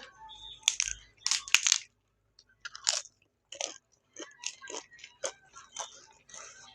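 Close-miked eating: a few loud crunchy bites in the first two seconds, then, after a short pause, steady crunchy chewing at about two chews a second.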